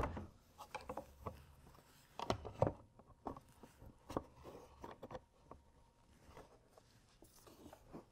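Quiet, scattered plastic clicks, taps and light scraping as rigid plastic wall panels are slid and pressed into the slotted corner rails of a tackle crate, with a few sharper knocks near the middle.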